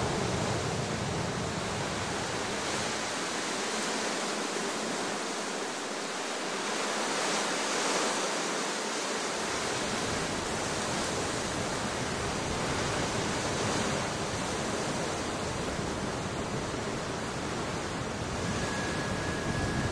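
Strong wind over an open mountainside: a steady rushing noise with a low rumble of gusts on the microphone. The rumble drops away for several seconds in the first half, then returns.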